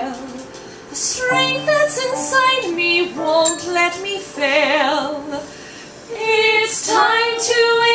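Women singing a slow cabaret song live, with a long note held with wide vibrato about halfway through. The singing drops away briefly, then comes back in on a held note near the end.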